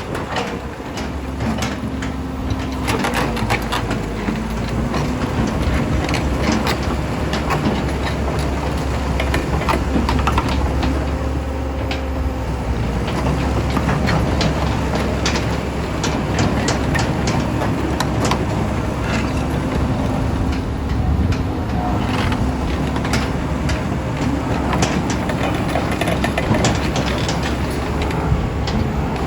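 Kobelco SK200SR hydraulic excavator running: a steady diesel rumble under a faint whine that dips and rises in pitch several times, with frequent metallic clanks and knocks.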